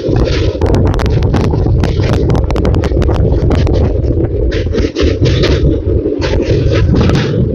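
Passenger train crossing a steel truss bridge, heard at an open window: a loud, steady rumble from the wheels on the bridge with many sharp clicks and rattles, and rushing air that swells and drops in quick bursts as the girders sweep past.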